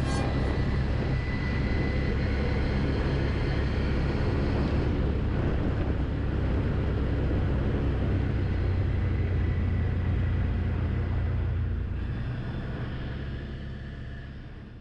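Quad bike (ATV) engine running steadily, fading out over the last few seconds.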